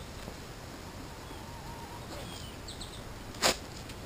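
Quiet outdoor background with faint bird chirps, and one short sharp rasp about three and a half seconds in from a beekeeping suit's veil being fastened at the neck.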